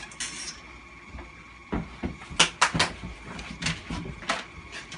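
Rough-and-tumble in a small room: several sharp knocks and thumps with scuffling between them, the strongest few clustered in the middle.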